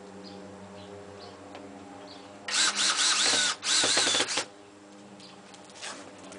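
Cordless drill driving screws through a chrome window brow into a trailer's skin, run in two short bursts about two and a half and three and three-quarter seconds in, each a motor whine that wavers in pitch.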